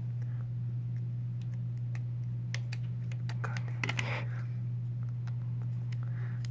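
Scattered light clicks and a short papery crinkle about four seconds in as tape and its paper backing are handled and pressed onto an iPhone 5S, over a steady low hum.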